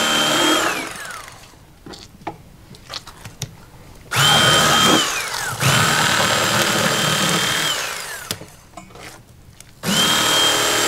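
Corded electric fillet knife cutting fillets from crappie, its motor running with a steady whine. It winds down with falling pitch about a second in, runs again from about four seconds to eight seconds, and starts up once more near the end. Faint taps from the knife and fish on the table come between the runs.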